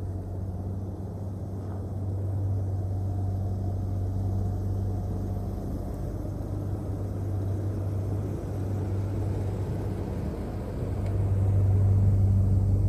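1991 Dodge D150 pickup's engine idling with a steady low hum, getting somewhat louder near the end.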